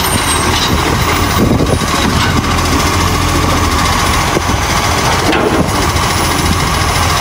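Steady engine running noise, the engine sound that goes with a toy garbage truck.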